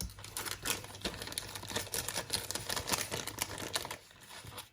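Dense, irregular small clicks and scratches of tiny plastic and metal parts of a cassette walkman's tape transport being handled and pressed into place, dying away near the end.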